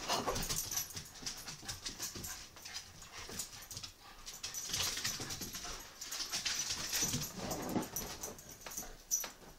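Beagle puppy scampering and scrambling on a hardwood floor, claws clicking and skittering in quick runs, with the puppy's own breathing and small vocal noises. The scuffing is loudest as it leaps down near the start and up again near the end.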